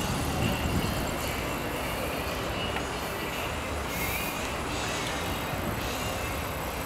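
Steady rumbling noise of a mountain bike being ridden along a paved path, heard on the rider's camera microphone as wind and rolling-tyre noise.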